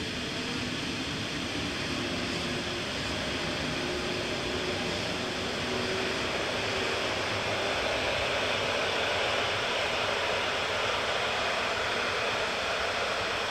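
Rhaetian Railway electric train passing, a steady rushing rolling noise with faint tones underneath that swells a little about halfway through.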